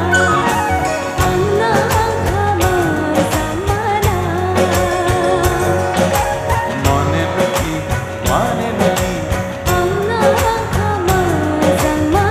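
Live band performing an Assamese song: a singing voice over a steady beat, with electric guitar in the band.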